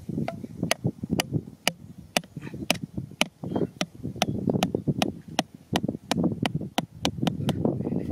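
Back of a hatchet striking the top of a blue PVC pipe again and again, about two to three sharp knocks a second and quickening, driving the pipe down into sandy ground.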